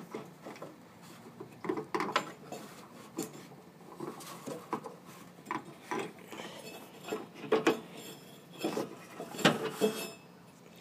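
Irregular light clanks, taps and rubbing of a V-belt being worked by hand around the pulleys and belt retention bars under a riding mower deck, with the loudest knocks in the last few seconds.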